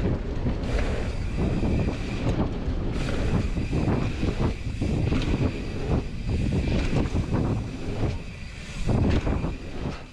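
Mountain bike descending a dirt trail: wind buffeting the camera microphone over the rumble of the tyres on dirt, with the bike rattling and knocking over bumps throughout.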